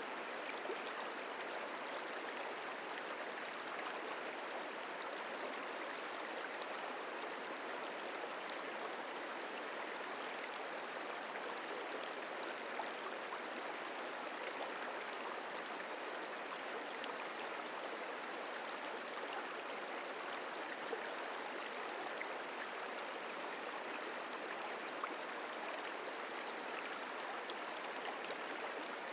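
The Merced River flowing: a steady, even rush of water, with a few faint ticks.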